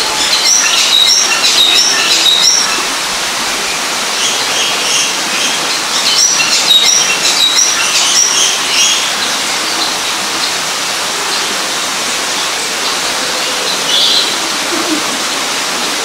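Small birds chirping in quick, high, repeated phrases, in two bursts of song and then a lone call near the end, over a steady rushing noise.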